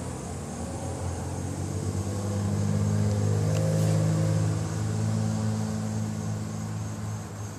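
A motor vehicle's engine running close by, a steady low hum that grows louder through the middle and fades again toward the end, as if driving past.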